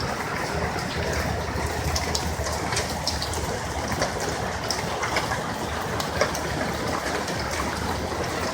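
A vehicle driving through floodwater on a street: a steady low engine and road rumble with water swishing and splashing from the tyres.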